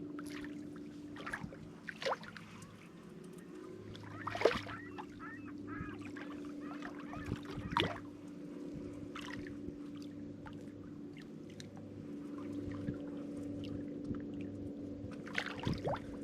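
Steady electric hum of a boat's trolling motor holding the boat in place on spot-lock, with scattered sharp clicks and knocks and a brief wavering, call-like sound about four seconds in.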